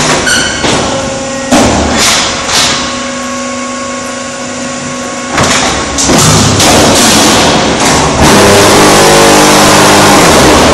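Concrete block making machine working through a cycle: loud knocks and thumps of its moving parts, then from about halfway a loud, steady machine hum whose pitch falls away near the end as it winds down.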